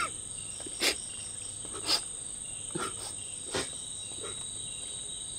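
Crickets chirring in a steady, high-pitched drone, with a few short, sharp sounds about a second apart over it.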